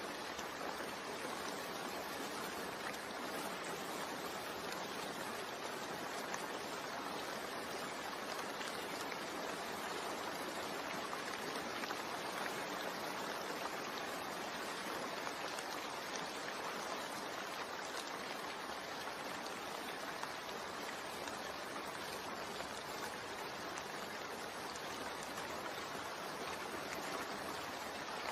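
Steady rain-sound background: an even hiss of falling rain without distinct drops or thunder.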